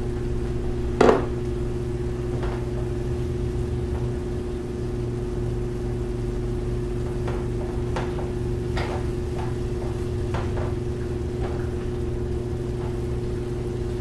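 Black slotted spatula stirring ground meat and taco seasoning in a skillet: one sharp knock of the spatula against the pan about a second in, then scattered scrapes and taps as the mixture is turned, over a steady hum.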